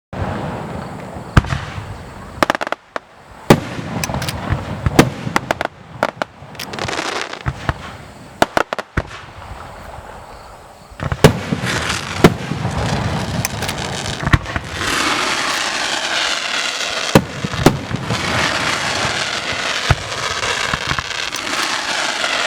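Fireworks display: a rapid series of sharp bangs from shells bursting, growing into dense, continuous crackling for roughly the last third.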